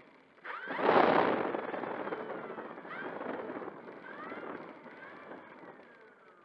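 Electric motor and propeller of an E-flite Air Tractor 1.5m RC plane throttled up in a sudden burst about half a second in, with a rush of air, then eased off. Several shorter throttle blips follow as it taxis, each a whine rising and falling in pitch, and the motor winds down with a falling whine near the end.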